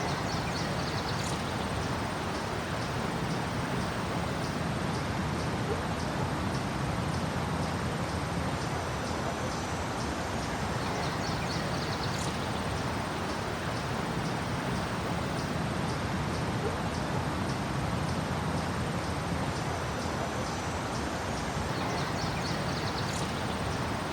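Park ambience: a steady wash of nearby street traffic, with small birds chirping repeatedly over it and a few louder high calls.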